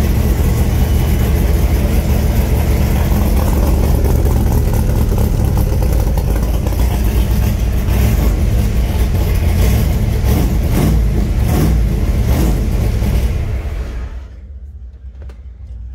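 Factory Five Cobra's V8 idling through side exhaust pipes, a steady deep rumble, then switched off about fourteen seconds in.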